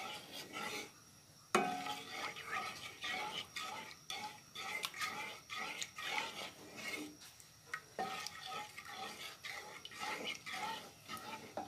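Wooden spoon stirring and scraping milk and sugar around a black wok in a quick, uneven rhythm of strokes, with a sharp knock about one and a half seconds in. The milk is being cooked down into condensed milk over a low flame.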